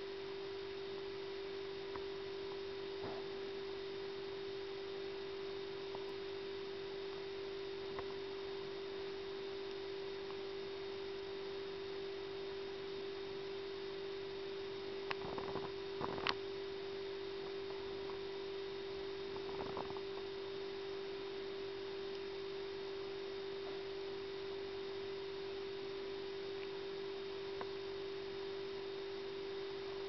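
A steady electronic hum at one mid pitch, with a few faint clicks about halfway through and another small cluster a few seconds later.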